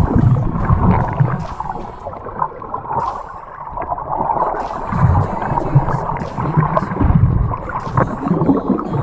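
Water sloshing and gurgling around an action camera at or just under the sea surface while snorkeling, with surges of low rumble at the start and again about five seconds in.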